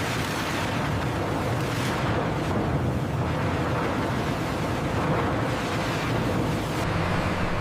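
Steady roar of factory machinery running, with a low hum underneath.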